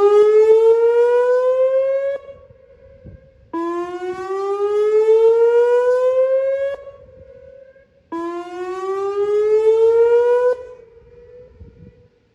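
Whelen WPS-2902 electronic speaker siren sounding its whoop tone during a test: a loud rising sweep ends about two seconds in, then two more full whoops follow, each a rising sweep of about three seconds with a short pause between.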